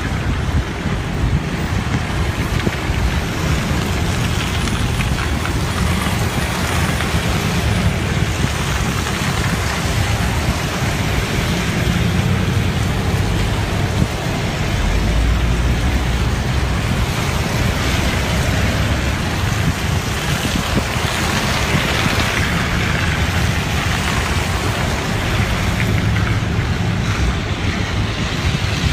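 Steady rain and wind noise on a phone microphone, with a low rumble, as vehicles drive past on a wet road.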